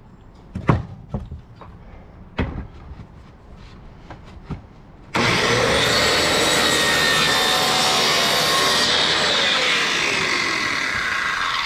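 A few knocks of wood being handled, then about five seconds in a cordless drill starts into a wooden post and runs for about six seconds, its motor whine slowly sinking in pitch as it bogs down, its battery running low.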